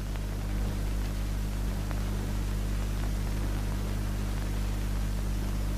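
Steady hiss with a low mains hum: the background noise of an old 1970 film soundtrack.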